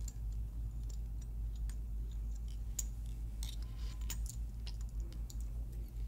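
Light, irregular small clicks and ticks of tying thread and a wire whip-finish tool being worked around a hook in a fly-tying vise, over a low steady hum.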